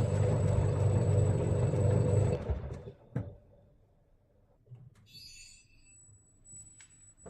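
LG direct-drive washing machine running with a loud, steady rumble that dies away about two and a half seconds in, followed by a single knock.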